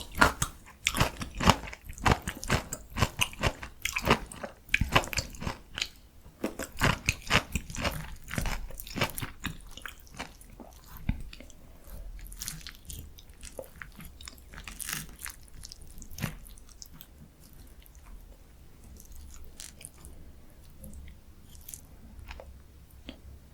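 Close-up eating: crisp crunching as a breaded, deep-fried pork cutlet (donkkaseu) is bitten and chewed, with dense loud crunches for the first nine seconds or so, then softer, sparser chewing.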